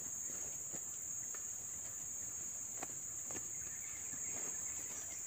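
Steady high-pitched drone of insects, with a few faint soft rustles and clicks from a bag being handled.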